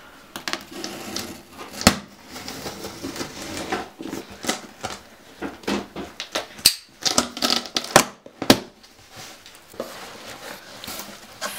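Irregular knocks, clatter and rustling from a large cardboard package being handled and opened, with sharp clicks scattered throughout and a loud knock about two seconds in.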